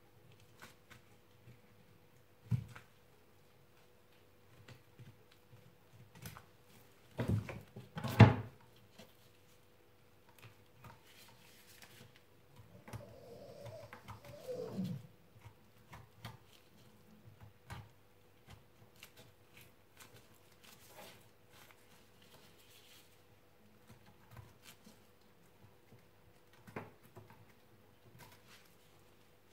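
Boning knife working through a roe deer saddle on a wooden cutting board: scattered soft clicks, scrapes and knocks of blade, meat and board, with a few louder knocks about seven to eight seconds in. A brief falling whine-like sound comes about halfway through, over a faint steady hum.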